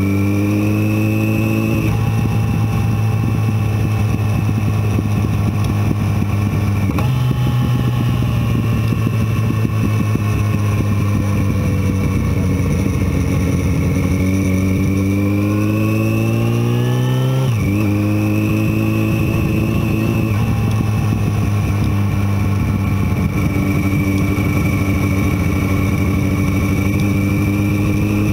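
Motorcycle engine running at road speed, its note steady with rising and falling revs. The pitch steps up sharply about seven seconds in, sags and climbs again, then drops sharply a little past halfway and holds steady.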